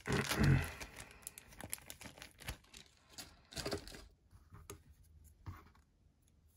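Small folding-knife parts being handled and fitted: scattered light clicks and scratchy rustling as replacement pivot washers are tried on the knife, with a louder bump of handling noise at the start.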